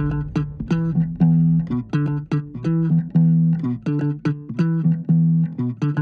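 Background music: a rhythmic run of short plucked bass and guitar notes.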